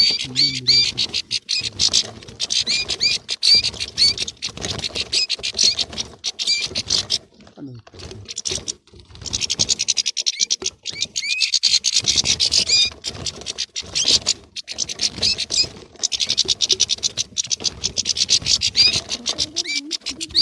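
A group of European goldfinches chattering in rapid, dense runs of high twittering notes, the calls of squabbling birds. The runs break off briefly a little past the middle and again later, then start up again.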